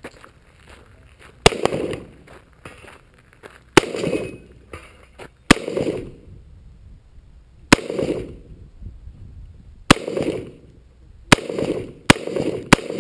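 Gunshots fired one at a time, about eight in all, each with a short echo. The first five come roughly two seconds apart, and the last three come quicker, about half a second to a second apart.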